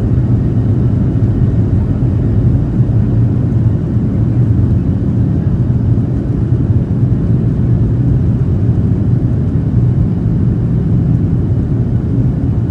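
Steady cabin rumble of a Boeing 737-800 taxiing, its CFM56-7B engines running at low power, heard from a seat over the wing.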